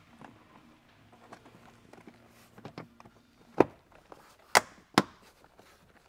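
Plastic interior trim around a car's door opening being handled and pressed into place by hand: faint rustling and light taps, then three sharp plastic clicks in the second half, the last two close together.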